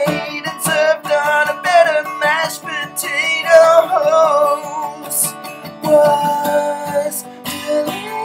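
Closing theme song: strummed acoustic guitar with a man singing over it.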